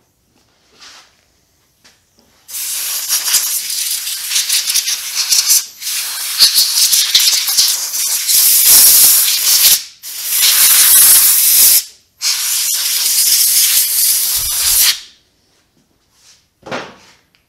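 Compressed-air blow gun hissing in four long blasts of a few seconds each, blowing dirt and debris out of a lawn mower's air filter cover.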